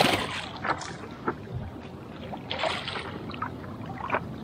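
Hooked peacock bass thrashing at the water's surface on the line, with a loud splash at the start and several smaller splashes after it.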